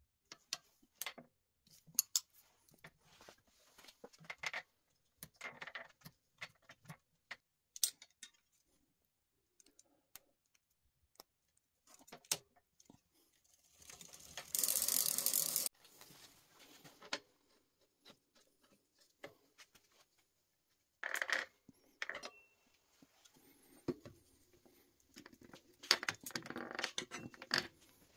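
Hands-on work at a bicycle's rear derailleur and drivetrain: scattered metallic clicks, taps and rattles of tools and parts. About halfway through, a loud rushing noise lasts about a second and a half and stops suddenly.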